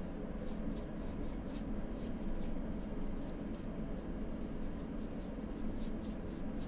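Paintbrush stroking across a stretched canvas: a run of short, soft scratchy swishes, two or three a second, over a steady low hum.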